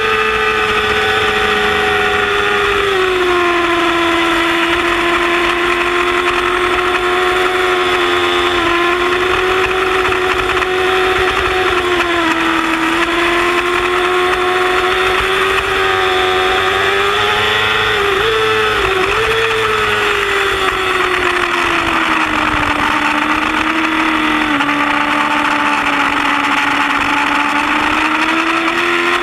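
Yamaha R6 sport bike's inline-four engine running at high revs under load, heard from an onboard camera. The engine note holds high and steady, sagging slightly a few seconds in and again later, with a brief wobble a little over halfway through and a small rise near the end.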